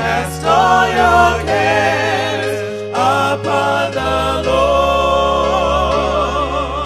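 Gospel music: singing voices with vibrato over a steady bass line whose notes change every second or two.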